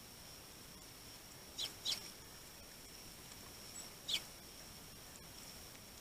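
Eurasian tree sparrows chirping: three short, sharp chirps, two in quick succession about a second and a half in and a single one about four seconds in.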